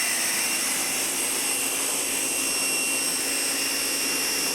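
Air conditioning unit running steadily: an even rush of air with several constant high-pitched whine tones and a low hum.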